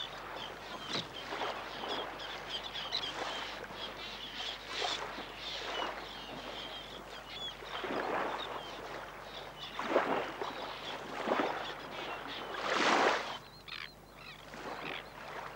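Birds chirping over and over, with soft swishing rushes of noise coming irregularly every second or two.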